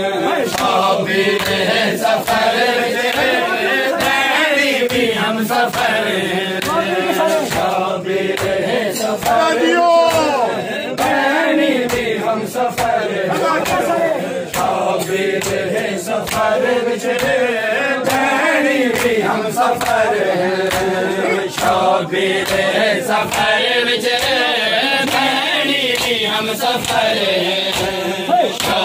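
A group of men chanting a noha together. Rhythmic slaps of hands on chests (matam) keep an even beat under the voices.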